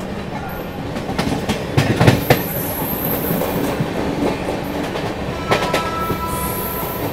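Express passenger train running on the rails, its wheels clattering over rail joints in clusters of knocks about a second in and again about five and a half seconds in, over a steady rumble. A thin steady high tone joins near the end.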